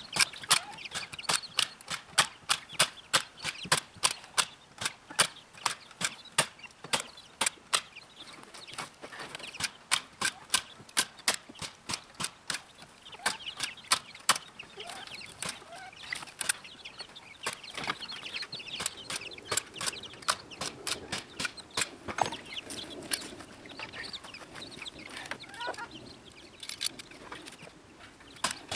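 Chickens clucking and peeping, with a run of sharp clicks, about two to three a second, through most of it.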